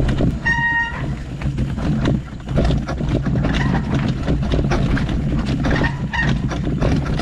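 Mountain bike riding fast over a rocky forest trail: a constant low rumble of wind on the helmet camera's microphone, with the bike rattling and clattering as the tyres hit stones. A short high squeal about half a second in.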